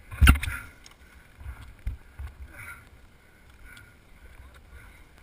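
A sharp, loud knock about a third of a second in, then a few lighter thumps and knocks over a low wind rumble on the microphone.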